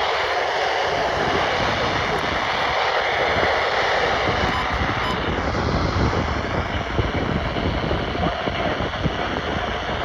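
Steady rushing static from a weather radio receiver, a loud even hiss with no distinct tone.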